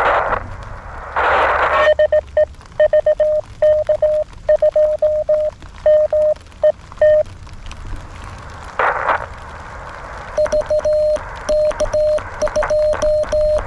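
Morse code (CW) tones from a (tr)uSDX QRP transceiver. First comes a received station sending its call sign, 'de VK2MET', as a beeping tone. From about ten seconds in, the operator's reply is keyed on a straight key and heard as the radio's sidetone, with the key's clicks. Short bursts of hiss come in between.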